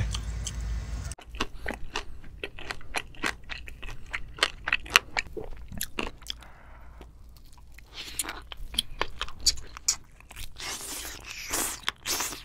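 Close-miked eating sounds: wet chewing with sharp crunches and smacks of the lips, starting about a second in as a quick, irregular run of clicks.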